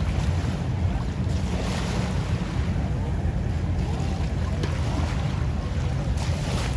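Wind buffeting the microphone over the low, steady rumble of passing motorboats and the wash of their wakes.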